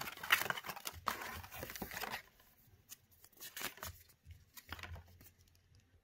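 Paper instruction leaflet rustling and crinkling as it is handled and unfolded by hand, busiest for the first two seconds, then only a few scattered soft rustles and taps.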